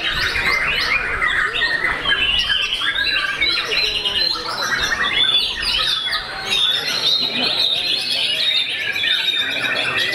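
White-rumped shama (murai batu) singing a continuous, varied song of whistled phrases, ending with a fast trill in the last few seconds.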